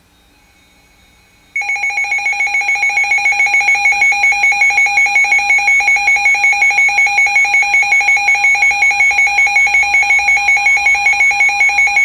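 Midland NOAA weather alert radio sounding its alert alarm for a received Special Marine Warning: loud beeping on two pitches, about four beeps a second, starting suddenly about a second and a half in after faint hiss.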